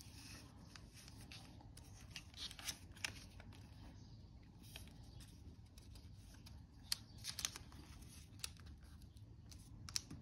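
Faint rustling of a sheet of origami paper being folded and creased by hand, with a few sharp paper crackles scattered through it.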